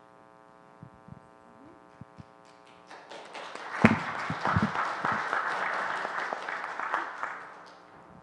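Audience applause starting about three seconds in and lasting about four seconds, with a single knock near its start. A steady low hum runs underneath.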